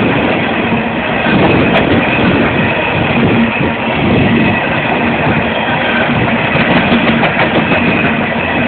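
A CSX freight train's cars rolling past, a steady loud rumble and clatter of wheels on the rails.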